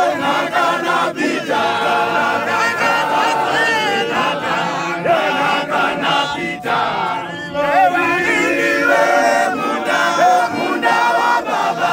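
A crowd of men singing together without instruments, many voices overlapping.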